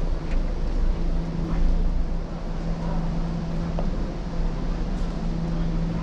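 City street ambience: a steady rumble of traffic with a constant low hum under it.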